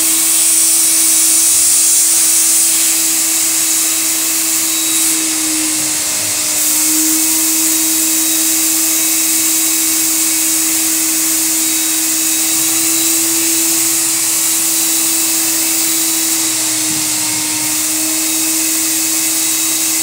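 Vacmaster wet/dry extractor running with its upholstery tool pulling moisture out of a wet mattress: a steady loud suction hiss over a steady motor hum. The pitch dips slightly twice.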